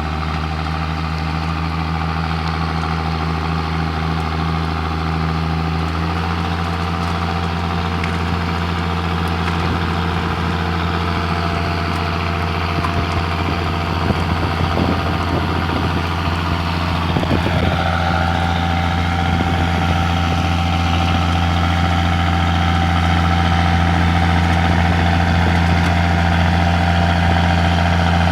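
John Deere 6620 tractor's six-cylinder diesel engine running flat out under heavy load, straining as the tractor fails to climb a soft, rain-soaked slope. The note steps up about six seconds in, a higher whine joins it a little past the halfway point, and it grows slightly louder toward the end.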